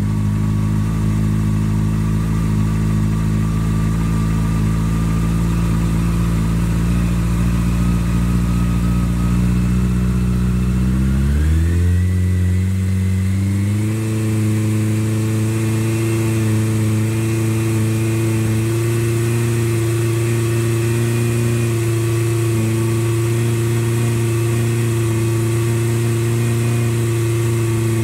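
Motorcycle engine idling through a Viper slip-on race can with its removable baffle in, heard close to the exhaust. The idle is steady, then about twelve seconds in it climbs smoothly to a higher speed and holds there.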